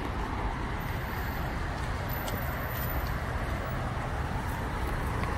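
Steady vehicle road noise: a continuous low rumble with no breaks or distinct events.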